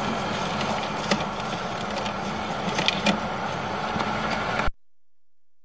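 An engine running steadily with a low hum and a few light clicks, cutting off abruptly about four and a half seconds in.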